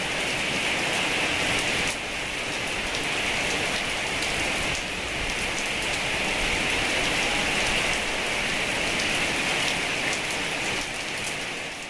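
Heavy rain falling steadily, a dense even hiss of drops, fading down near the end.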